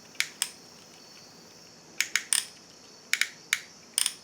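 Trigger of a handheld solder-feed soldering gun clicking as it is pulled and released over and over to advance the solder wire, about ten sharp clicks in small groups.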